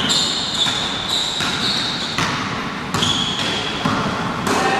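Basketball bouncing on a gym floor, with the high squeaks of sneakers on the court between the bounces, echoing in a large sports hall.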